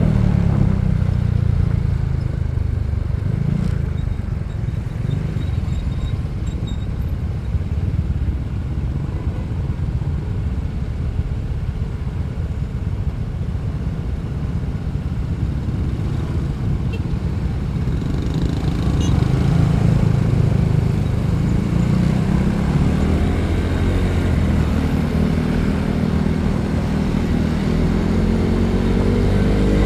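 Motorcycle engine running while riding, over a steady low rumble. The engine note climbs about 18 seconds in and again near the end as it accelerates.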